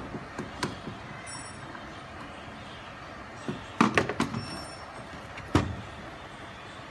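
Handling noise at a workbench: small clicks as the air switch and metal enclosure are handled, then a clatter of hand tools on the tabletop about four seconds in, and a single sharp knock over a second later as the metal box is moved.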